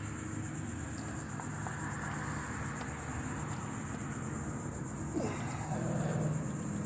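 Crickets chirping in a fast, even pulse over a low steady hum, with a short scrape and rustle about five seconds in.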